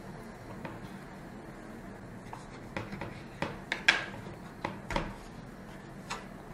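Knife cutting dough on a wooden chopping board: quiet rubbing and scraping, then several sharp knocks of the blade and hands against the board, the loudest about four seconds in.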